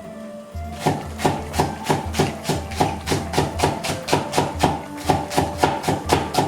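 Kitchen knife chopping vegetables on a wooden cutting board: a steady run of sharp strokes, about three a second, starting about a second in.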